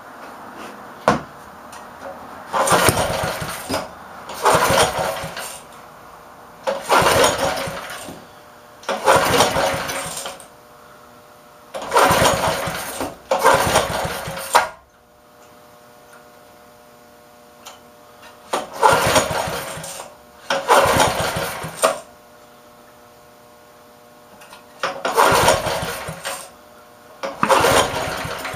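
Small single-cylinder engine of a 1954 Montgomery Ward Chore Trac being cranked over again and again, about ten short cranking bursts mostly in pairs, without catching; its throttle linkage has been left unconnected.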